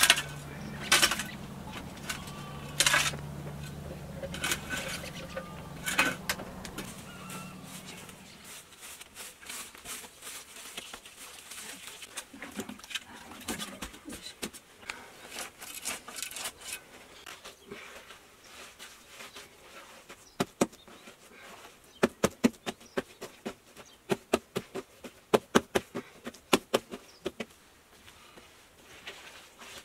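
A shovel scraping and digging into a stable's dung-and-earth floor, with a few loud scrapes in the first six seconds over a low steady hum. From about two-thirds of the way through comes a run of quick, sharp knocks and slaps, several a second, as the dung is worked.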